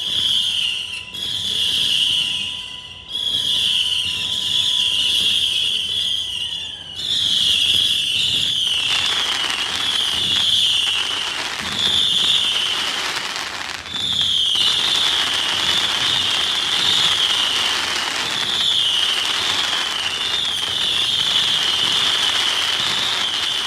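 Consumer firework cakes firing a finale: a continuous string of overlapping high whistles, each dipping slightly in pitch, over crackle and pops.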